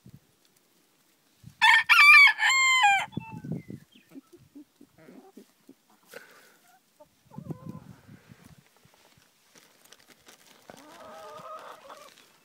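Rooster crowing once, loudly, about one and a half seconds in and lasting about a second and a half. Softer, lower chicken clucking follows near the end.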